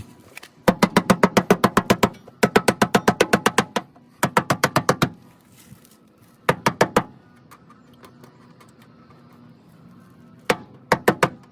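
Ball peen hammer rapidly tapping the inside of a car's rear fender lip, metal on metal, in five quick runs of strikes about ten a second with short pauses between, rolling the lip so the wider tyre stops rubbing.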